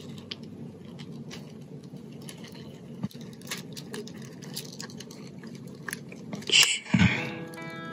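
Small clicks and light clacks of a die-cast metal and plastic action figure's joints and parts being handled and pressed into place, over a steady low hum. A louder rustling clatter with a thump comes near the end, and music with held notes comes in just before the end.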